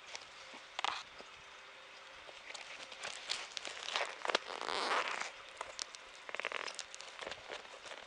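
Handling noise close to the microphone: a baseball shoe being turned over and rubbed by hand, giving irregular rustling and scraping, with a quick run of clicks a little past the middle.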